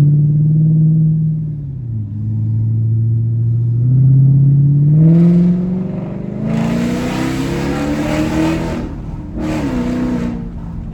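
Car engine running at a steady, loud idle, then revved: the pitch climbs from about five seconds in with a raspy exhaust, followed by a second short rev near the end.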